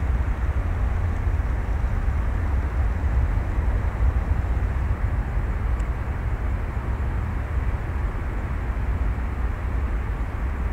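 Low, steady rumble of a Boeing 737-800's CFM56-7B jet engines heard after takeoff, as the airliner climbs out.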